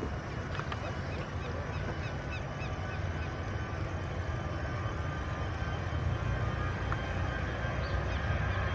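Airbus A320 jet engines at takeoff power during the takeoff roll: a steady low rumble that grows slowly louder as the airliner accelerates toward the listener.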